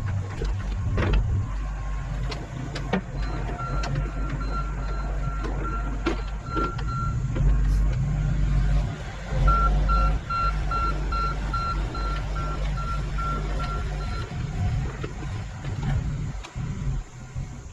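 Diesel engine of a mini excavator working steadily, with a backup alarm beeping in two runs of evenly spaced beeps as the machine travels.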